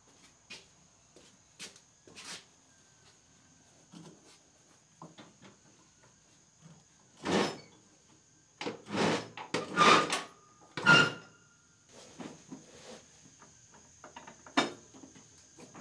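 Scattered clunks, scrapes and knocks of steel parts being handled under a lawn tractor's mower deck, with a few louder clanks about halfway through, one ringing briefly.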